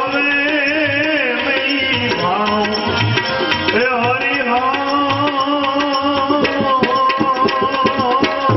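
Instrumental passage of a Gujarati bhajan: tabla playing a steady rhythm under a melodic instrument carrying an ornamented tune, with no singing.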